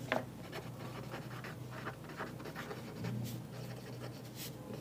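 Felt-tip marker writing on paper: faint, quick scratching strokes of the tip as words are written out.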